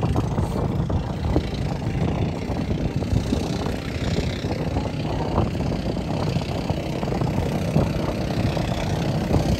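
Motor outrigger boat's engine running steadily while towing, mixed with wind noise on the microphone.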